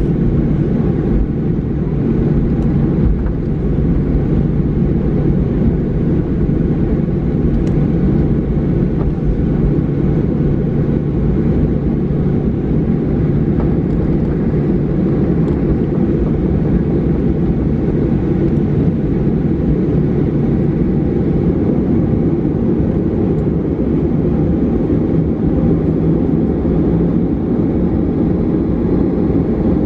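Boeing 737-800 taxiing, heard from inside the cabin: a steady low rumble of its CFM56 engines at taxi power and its wheels rolling over the concrete, with a steady low hum under it.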